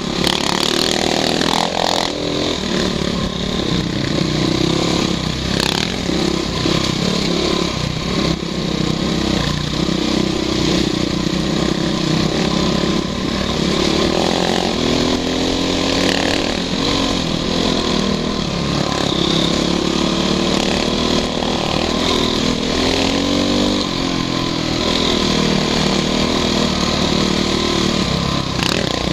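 Dirt bike engine running hard on a rough trail, its pitch rising and falling as the rider throttles on and off. A few sharp knocks from the bumpy ride break in.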